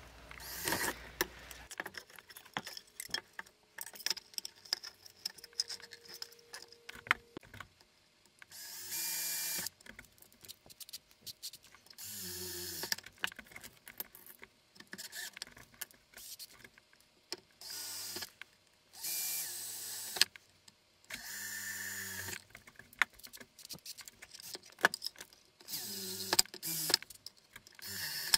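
Cordless drill/driver running in short bursts of about a second, about six times: drilling into the plastic battery case and driving screws to mount the LED panel. Sharp clicks and clatter from handling parts and screws fall between the bursts.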